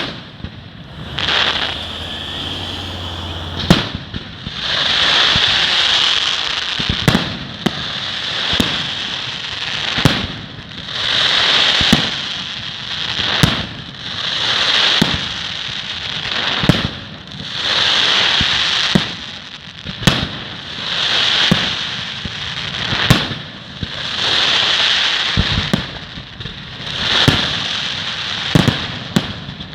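Fireworks going off in a steady barrage: sharp bangs, each with a swell of crackling about a second long, repeating roughly every one and a half seconds.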